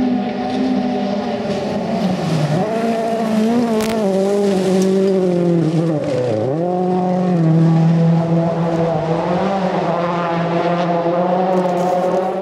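Rally car engine running hard, its pitch dropping sharply and climbing back twice, about two seconds in and again about six seconds in.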